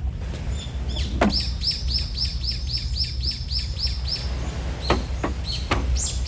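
A songbird repeating one short falling note about a dozen times in a quick, even series, nearly four notes a second, over a steady low rumble. A few sharp clicks or knocks come around it, the loudest one just before the series starts.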